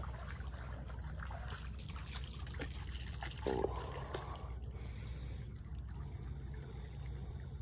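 Shallow creek water trickling, with one short low vocal sound about three and a half seconds in.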